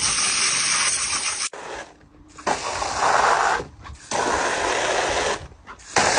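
Garden hose spray nozzle shooting water into a plastic kiddie pool, switched on and off in four bursts of about a second each with short breaks between.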